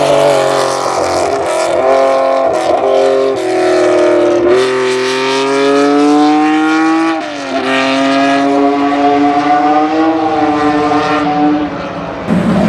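Supercar engine accelerating hard through the gears. The pitch climbs, falls sharply at each upshift, then climbs again, with one long pull in the middle before it levels off and fades near the end.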